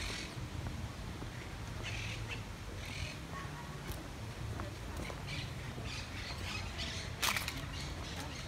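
Birds calling in short, repeated bursts, with one louder call about seven seconds in, over a low steady street hum.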